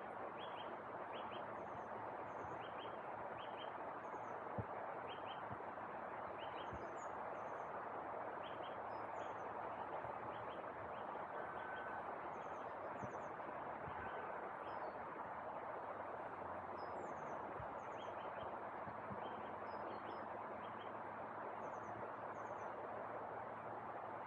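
Small birds chirping in short repeated high calls over a steady rushing background noise, with one brief tap about four and a half seconds in.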